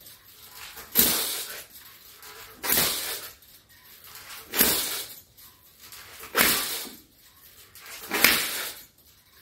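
A man's hard, forceful exhalations, one with each rep of bending a 70 kg spring power twister, five in all at an even pace of about one every two seconds.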